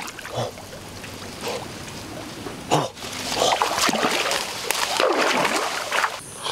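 Shallow muddy water splashing and sloshing as a person wades and works his hands through it, quieter at first, with a sharp splash near the middle and busier splashing after it.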